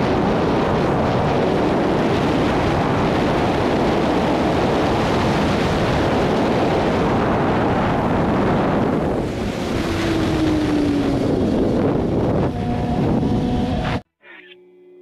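Heavy wind rush on the microphone while riding a BMW S1000RR at speed, with the inline-four engine note faint beneath it; the note falls in pitch for a couple of seconds about ten seconds in. The riding sound cuts off abruptly about fourteen seconds in, followed by quiet music.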